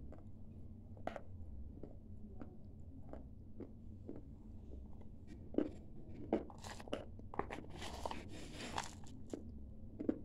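A person chewing and crunching dry clay, with irregular crisp crunches throughout and a denser run of crunching from about six to nine seconds in.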